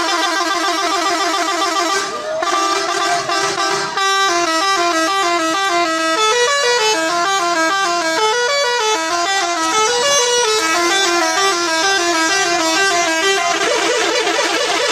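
Indonesian bus 'telolet' multi-tone air horn playing a rapid melody, its notes stepping up and down in quick runs. About two seconds in it briefly holds a steadier tone, and near the end it switches back to fast alternation between a few notes.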